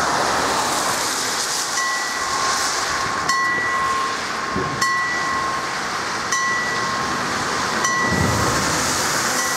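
Level crossing warning bell starting up, striking about every second and a half with each ding ringing on, signalling that the barriers are about to come down for a train. Under it, a steady hiss of traffic on the wet road, with a lorry approaching near the end.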